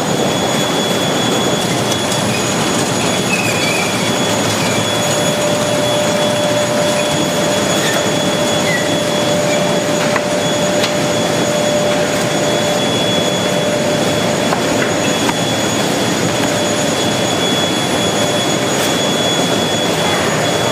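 Industrial cabbage washing and processing machinery running: a steady loud rush of water and motors with several constant high-pitched whines.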